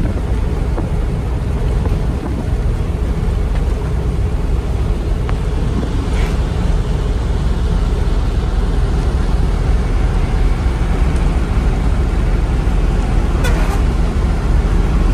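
Steady engine and road rumble heard inside a moving truck's cab while it drives at speed.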